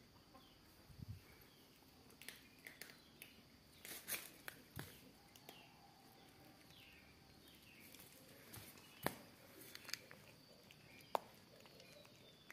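Cats eating dry kibble off the floor: faint, irregular sharp crunches, over a steady high chirring of insects.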